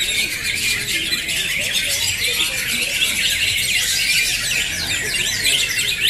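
Many caged green leafbirds (cucak hijau) singing at once in full song: a dense, continuous chorus of rapid, overlapping chirps and whistled trills that sweep quickly up and down in pitch.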